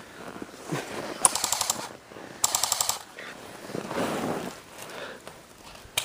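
Airsoft gun firing two short bursts of rapid fire about a second apart, followed near the end by a single sharp click.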